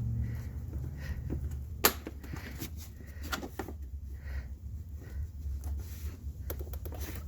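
Scattered clicks and knocks of a rubber floor mat being pressed down and its pegs snapped into their holes in a scooter's plastic floorboard, with one sharp snap about two seconds in and a quick run of clicks near the end, over a steady low hum.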